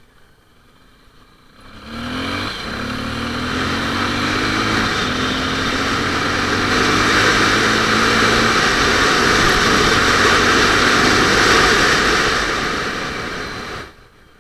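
Honda XR250 Tornado's single-cylinder four-stroke engine pulling away and accelerating. About two seconds in the engine starts in loud, and its pitch rises as the bike gains speed. Wind rushing over the helmet-top camera's microphone grows with speed, and the sound cuts off abruptly near the end.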